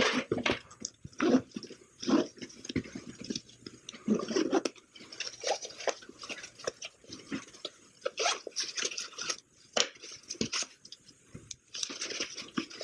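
Hands handling cardboard packaging and a fabric drone carrying bag: irregular rustling, scraping and light knocks and clicks.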